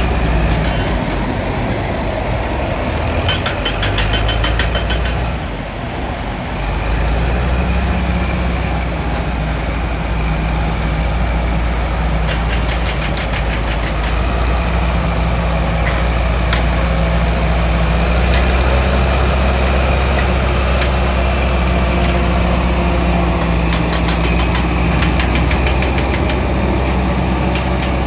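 Heavy machinery's engine running steadily and loudly, with three spells of rapid rattling clicks.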